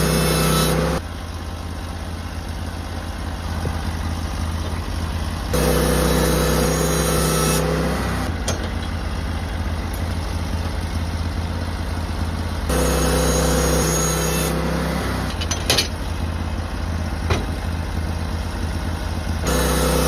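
Portable sawmill's engine running while milling an old Western red cedar dock pole. Its sound changes abruptly several times between a louder, steadier note and a quieter, rougher one, with a couple of sharp ticks in the second half.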